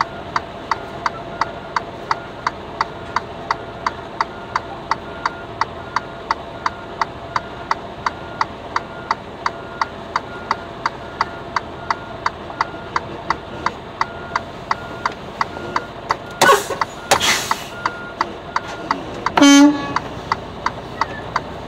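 Truck's reversing beeper sounding steadily inside the cab, about two and a half beeps a second, while the semi backs up. Near the end come two short bursts of noise and then a brief loud tone.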